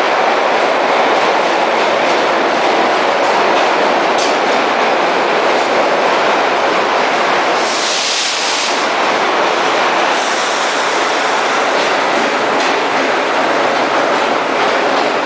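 Vintage New York City subway train running through an underground station at speed without stopping: a steady loud rumble and clatter of steel wheels on the rails. A brief, brighter hiss comes about eight seconds in.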